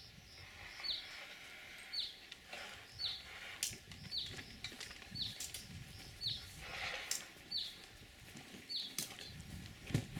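A bird calling over and over, a short high falling note repeated roughly every second or less, with scattered light knocks and clicks as brass instruments, cases and music stands are handled and packed away.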